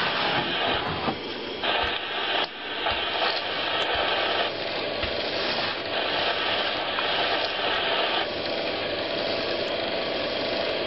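Steady machine noise, an engine or motor running without a break, its tone changing abruptly a few times, with a few light knocks.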